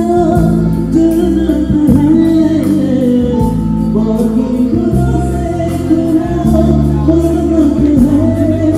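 A live band plays a Hindi romantic song, with held bass notes under a melody and a steady light beat.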